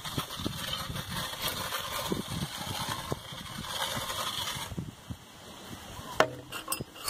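Wooden profile template scraping around a wet cement-mortar pot on its mold: a gritty rasping with small rattling ticks as it sweeps the mortar to shape. The scraping stops about two-thirds of the way through, and a sharp click or two follow near the end.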